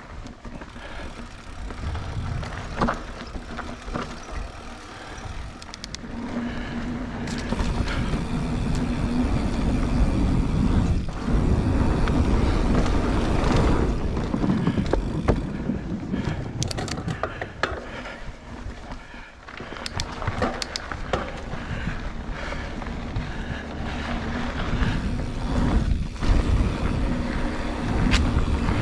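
Polygon mountain bike being ridden along a dirt singletrack trail: a steady rumbling rush of tyre and wind noise, louder from about six seconds in, with sharp clicks and clatters of the bike over bumps.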